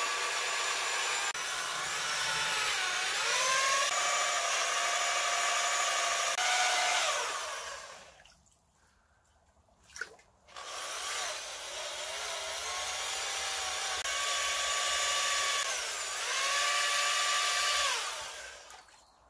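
Handheld electric paddle mixer, a construction-site cement mixing drill, running with its paddle in a bucket of sugar water being mixed as bee feed. It runs in two spells of about eight seconds each with a short stop between, and its motor pitch dips and rises as the speed trigger is eased and squeezed.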